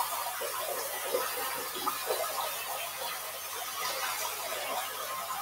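Handheld shower spraying water over a dog being washed, a steady hiss with scattered short squeaks.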